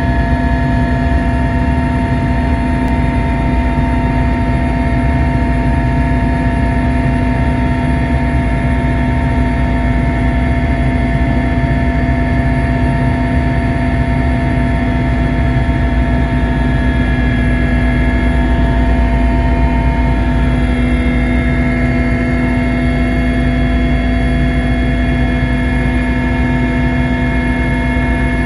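Aircraft engine noise heard from inside the cabin: a loud, steady drone with several held whining tones over a low rumble.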